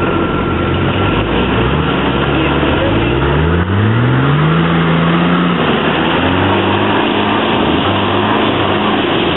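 Off-road 4x4's engine revving under load as it works through a muddy creek bed. The pitch climbs over about two seconds, holds, then drops back and rises again near the end, over a steady rushing noise.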